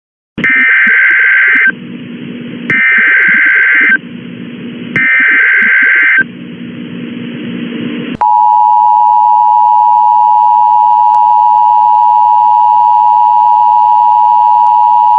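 Emergency Alert System header: three loud, harsh bursts of SAME data tones, each about a second long with hiss in the short gaps between them. About eight seconds in, the steady two-tone EAS attention signal starts and holds on, marking the start of an emergency alert broadcast.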